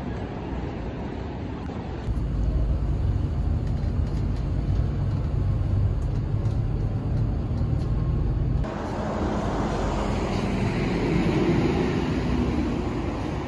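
A city bus's engine and road rumble heard from inside the cabin, a steady low rumble for several seconds in the middle. Outdoor street traffic noise comes before and after it.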